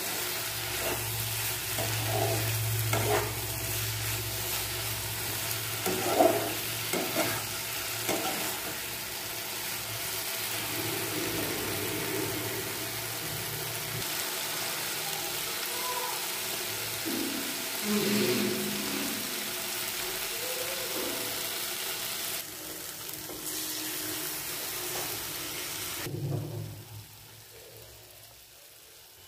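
Soya chunks and potatoes sizzling in oil and spice paste in a kadai, being sautéed down with a little water, with a spatula scraping and knocking against the pan now and then. The sizzle fades near the end.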